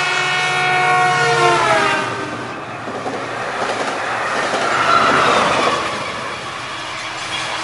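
Metrolink commuter train's locomotive horn sounding a chord that drops in pitch as the train passes. The noise of the passing bilevel cars then rises, peaks about five seconds in and eases off.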